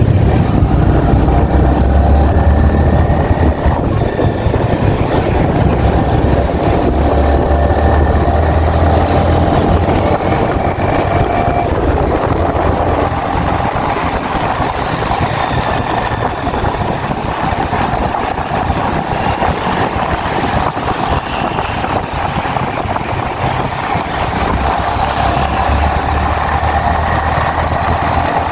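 Yamaha XSR 155's 155 cc single-cylinder engine running while the motorcycle is ridden, over a steady rush of riding noise. The deep engine note is heaviest for the first several seconds and again near the end, and lighter in between.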